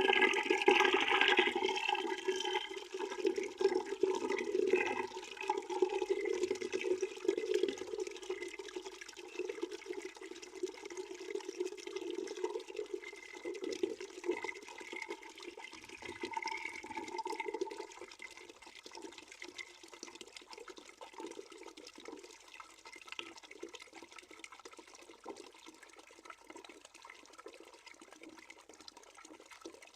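Water running from a hose or tap into a bucket, a steady splashing stream. It grows quieter a little over halfway through.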